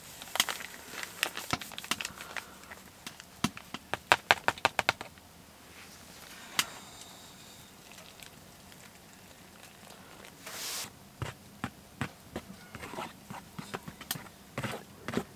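Clinks, taps and knocks of camp cooking gear being handled while breakfast is prepared, with a quick run of about a dozen clicks about four seconds in and a brief rushing noise about ten seconds in.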